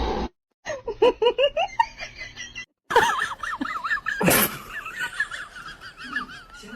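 People laughing in quick repeated bursts, broken by two abrupt cuts, with a loud sudden burst of noise about four seconds in.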